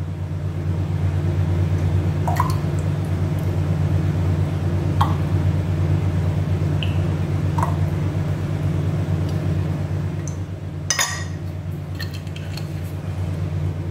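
Metal spoon clinking against a glass jar about every two and a half seconds as spoonfuls of olive oil are measured in, then a louder clink near the end as the spoon is set down in the jar. A steady low hum runs underneath.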